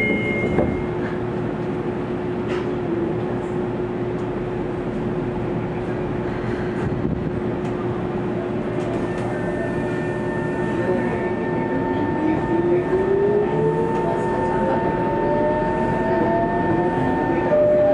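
Electric commuter train's traction equipment whining as a train starts moving, with a tone that rises steadily in pitch over the last several seconds. Underneath is a steady electrical hum.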